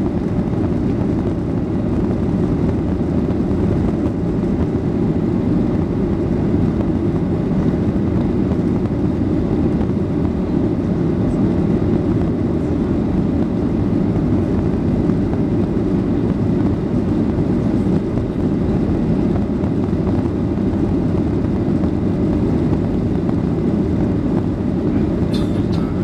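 Steady cabin noise of a Ryanair Boeing 737 climbing after takeoff: jet engines and airflow heard through the fuselage as an even, low rumble.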